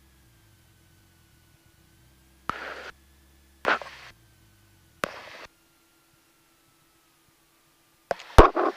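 Aircraft headset intercom or radio line: three short bursts of static, each opening with a click, then a voice breaking in near the end.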